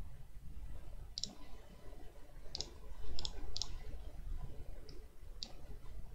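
Computer mouse button clicking about six times, in short single and paired clicks, over a low steady room hum.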